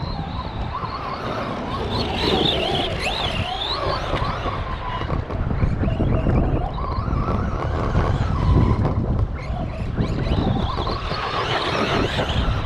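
Radio-controlled Arrma Big Rock monster truck's electric motor whining, its pitch rising and falling repeatedly as it speeds up and slows through the track's turns, over a steady low rumble.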